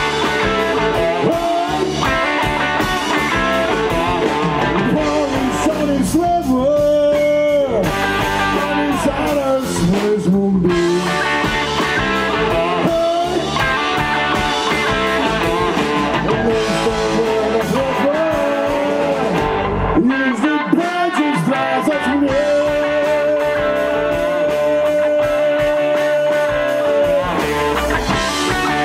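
Live electric blues band playing: electric guitars, bass guitar and drums, with a harmonica played into a cupped microphone carrying the lead in long bent notes. One long held note near the end.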